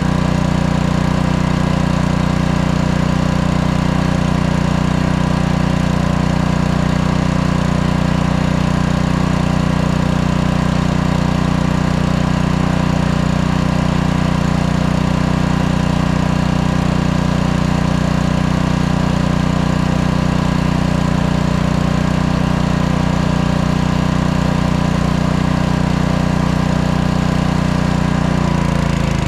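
Small gasoline engine of a pressure washer running at a steady, unchanging speed.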